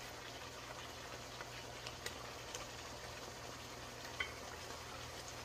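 Fried fish, ginger and peppers sizzling quietly in a wok, a steady soft frying hiss with a low hum under it. A few light clicks come from the wooden spatula and dishes, the clearest about four seconds in.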